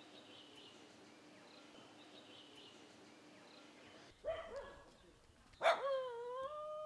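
Faint bird chirps over quiet ambience. About four seconds in, a dog gives a few short yelps, then starts a long howl that rises slightly and holds its pitch.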